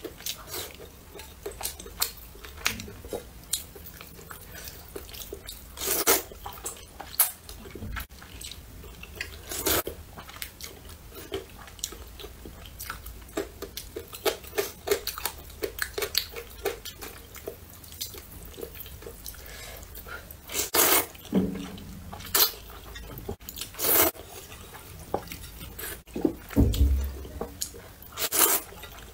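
Mukbang eating sounds: wet chewing and mouth smacking on spicy rice noodles, broken by a louder slurp of noodles every few seconds.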